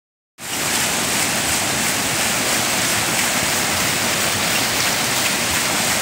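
Fast river water rushing over rapids and splashing through the paddles of a turning water wheel. It is a steady, even rush of water that starts just under half a second in.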